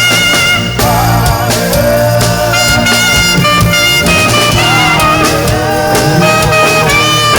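Saxophone playing a slow gospel worship melody of long, wavering notes over a band backing with bass and drums.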